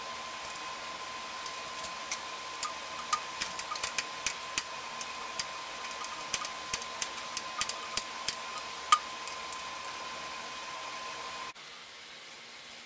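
Irregular light metallic clicks and taps as a Tektro V-brake arm and its brake pad are adjusted with an Allen key, the sharpest about nine seconds in. They sit over a steady background hum with a faint high tone, which cuts off abruptly near the end.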